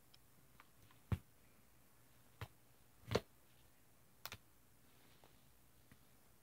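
A few sharp clicks and taps from hands handling a Nikon DSLR camera body, about four in all, spaced roughly a second apart, the loudest a little past three seconds in.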